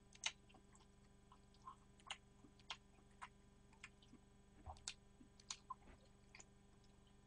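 Faint eating noises close to a microphone: chewing with about a dozen scattered small clicks and smacks, over a steady electrical hum.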